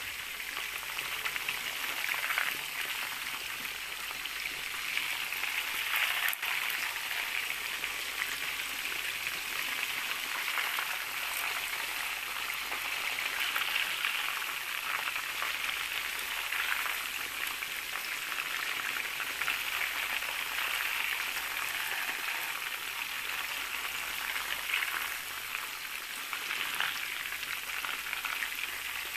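Chicken wings deep-frying in hot oil in a pan: a steady crackling sizzle.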